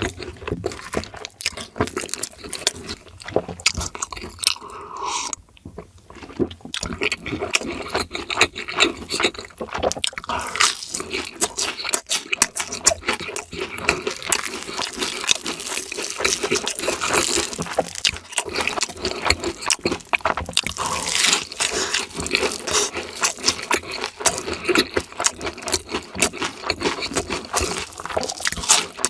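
Close-miked eating: crunchy bites and wet, saucy chewing, made up of many rapid small clicks and smacks.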